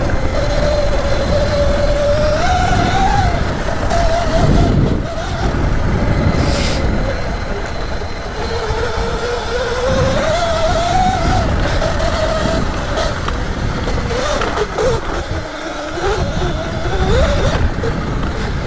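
Sur Ron electric dirt bike's motor whining, its pitch rising and falling repeatedly as the throttle opens and closes, over a steady low rumble.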